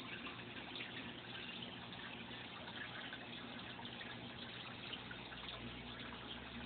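Steady trickling and splashing of circulating aquarium water, with a faint low hum underneath.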